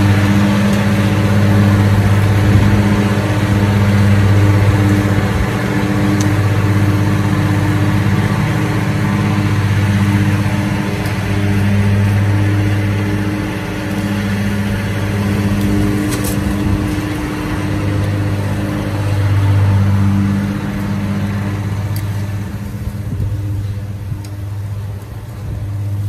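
Petrol lawn mower engine running steadily, its sound swelling and easing every few seconds as the mower moves back and forth, and growing fainter near the end.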